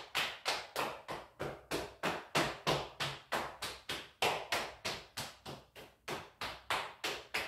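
Hands patting rhythmically along the legs in a qigong meridian-tapping exercise, about four slaps a second, each sharp and quickly fading.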